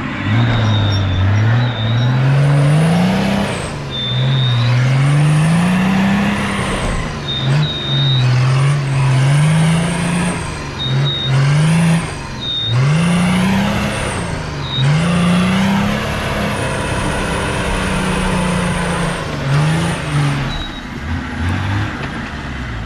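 Off-road 4x4's engine revving up and dropping back over and over, about eight times, as it spins its wheels trying to drive out of deep mud. Short high squeals come through at several points.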